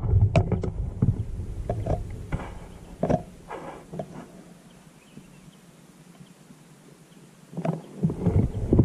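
Low rumble and a few knocks from a rifle-mounted scope camera being moved and aimed, with wind on the microphone. It goes quiet while the aim holds steady in the middle, and the rumble returns near the end as the rifle shifts again.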